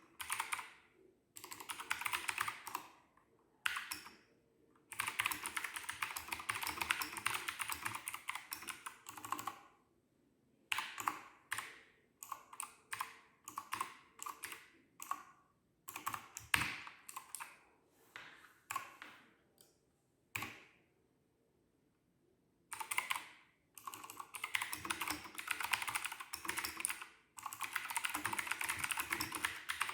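Keychron K2 (Version 2) wireless mechanical keyboard being typed on: runs of fast, continuous typing alternating with shorter bursts of keystrokes and brief pauses, with a quiet gap of about two seconds a little past the middle.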